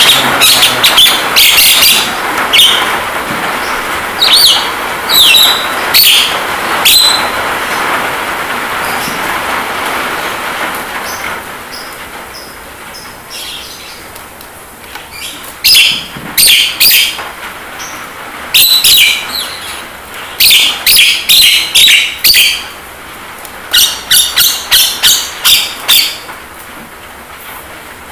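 Javan myna (jalak kebo) calling: loud, sharp high notes in quick runs of several at a time, with a run of about six near the end. A steady rain hiss, the rain-sound therapy track, lies underneath and fades away in the first ten seconds or so.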